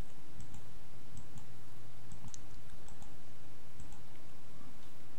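Faint computer mouse clicks, several in quick pairs like double-clicks, over a steady low hum and hiss.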